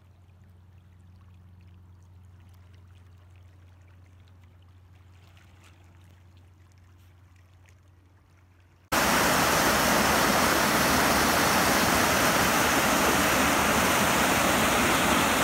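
A faint low hum for about nine seconds, then, abruptly, the loud steady rushing of small waves washing against the shore.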